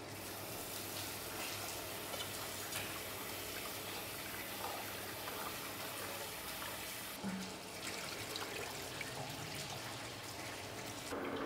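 Kitchen tap running into a rice cooker's metal inner pot while rice is rinsed by hand, a steady rush of water. About seven seconds in the tap stops, and softer swishing follows as the cloudy rinse water is poured off into the steel sink.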